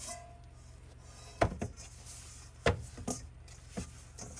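Four sharp knocks from kitchenware being handled while dough is worked, the loudest about one and a half seconds in, over a low steady hum.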